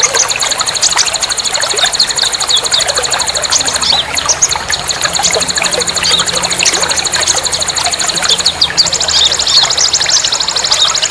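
A dense chorus of songbirds chirping, over a continuous rapid high trill that shifts pitch about nine seconds in. This is the kind of recording played to caged songbirds to prompt birds that have gone quiet to start singing again.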